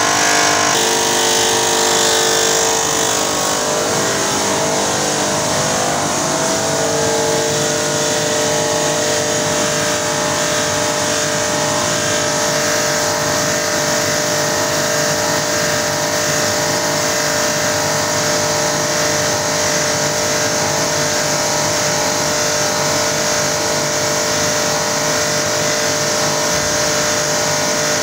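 Kurkure snack production-line machinery running steadily: a loud, continuous mechanical hum and hiss with a constant whine.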